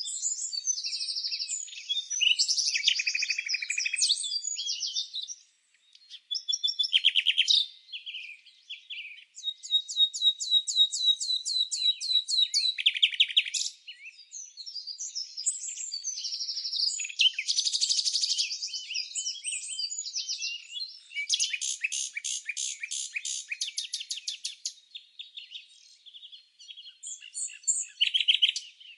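Songbirds singing and chirping in a string of varied phrases. There is a fast trill of repeated notes about ten seconds in, and a denser, quicker trill a little past twenty seconds.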